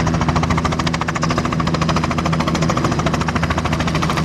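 Helicopter close by, its rotor chopping in a fast, even beat over a steady low engine hum.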